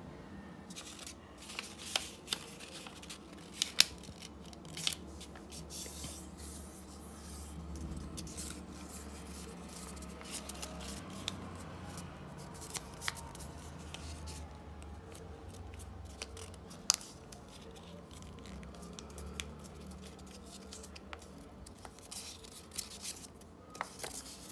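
A strip of white paper being folded and creased by hand into accordion folds, with sharp crackles and snaps of the paper scattered irregularly through it.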